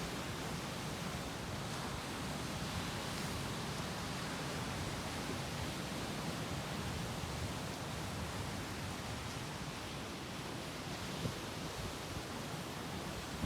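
Sea surf breaking and washing against rocks on the shore, heard as a steady, even wash of noise.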